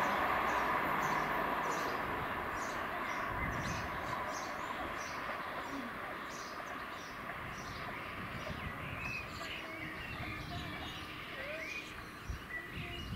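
Southern Class 377 electric multiple unit running away down the line, its noise fading steadily. Birds chirp more clearly as it dies away in the second half.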